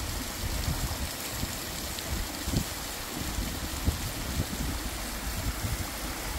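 Waterfall rushing: a steady roar of falling water, with irregular low rumbling beneath it.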